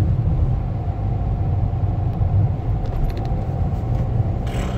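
Steady low rumble of a running car heard from inside the cabin, with a brief hiss near the end.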